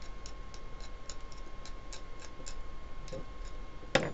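Soldering iron tip being cleaned, giving light scratchy clicks about four times a second, with a louder knock near the end.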